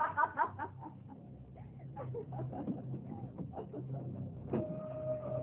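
A woman's muffled cries and whimpers, smothered by a hand held over her mouth, loudest in the first half-second. Near the end a sustained musical tone comes in.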